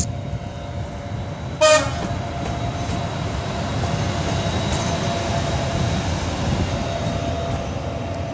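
A ChS4 electric locomotive running light past at low speed, its wheels rumbling on the rails with a steady whine from the machine. Less than two seconds in it gives one short toot of its horn, the loudest sound.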